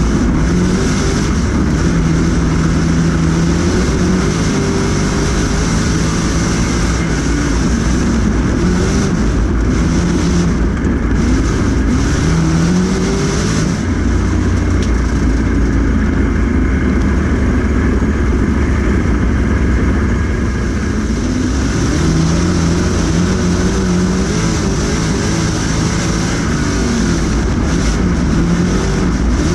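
Street stock dirt-track race car engine heard from inside the cockpit at racing speed, loud and continuous. Its pitch rises and falls every few seconds as the throttle comes off and back on for the corners, over a steady rush of wind and track noise.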